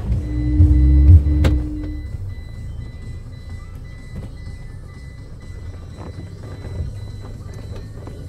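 Car engine revving hard for about two seconds as the car tries to climb a sandy track, then running lower for the rest.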